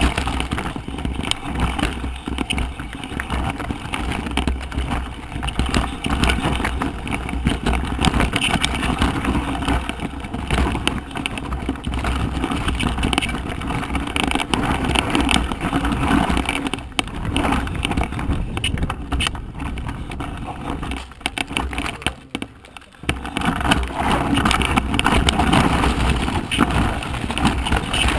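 Mountain bike riding down a rough, rocky trail: tyres crunching and clattering over loose stones and the bike rattling, in a dense run of knocks. It eases briefly about three-quarters of the way through.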